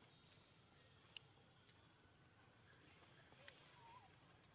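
Faint, steady high-pitched drone of insects in the forest canopy, with a single sharp click about a second in and a couple of faint short squeaks near the end.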